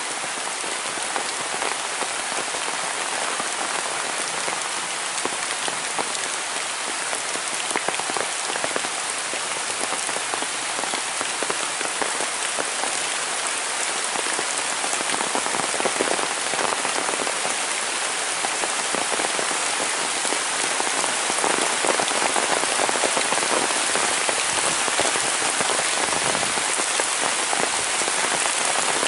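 Steady heavy rain falling on leaves and a wet paved footpath: a dense hiss full of fine drop patter, growing a little louder about halfway through.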